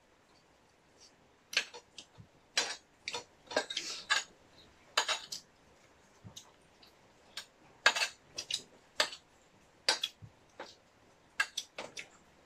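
A metal spoon clinking and scraping against a ceramic plate while eating, in irregular clusters of sharp clicks.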